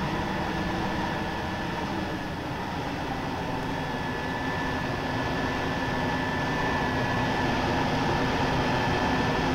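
Jet engines of a taxiing Boeing B-47 Stratojet, its General Electric J47 turbojets running steadily at low power: an even, high whine over a broad rushing noise.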